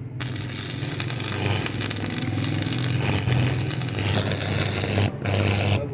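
Electric arc welding on steel bearing balls: a continuous harsh crackle over the welder's steady low hum, the arc breaking off briefly twice near the end.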